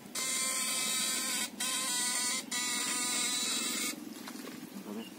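Homemade backpack electrofishing shocker (battery-driven inverter) buzzing as it is switched on to put current into the water through its poles. It buzzes high-pitched in three spells with two brief breaks, then cuts off about four seconds in.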